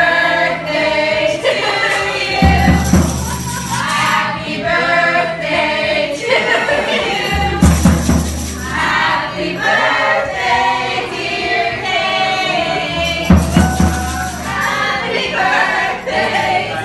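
A group of people singing a birthday song together, with a deep note coming in about every five seconds.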